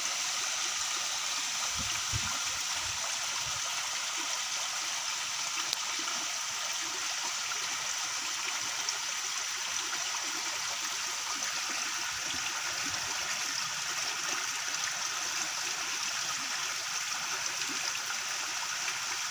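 Shallow stream flowing fast, a steady rushing of water.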